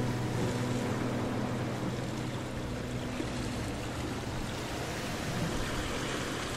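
Soft guitar background music fading out over the first few seconds, leaving a steady rushing hiss that swells slightly near the end.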